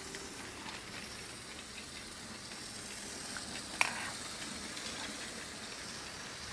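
Motorized LEGO 9467 Ghost Train running on plastic LEGO track: its Power Functions train motor and wheels make a steady, faint whir, with one sharp click a little under four seconds in.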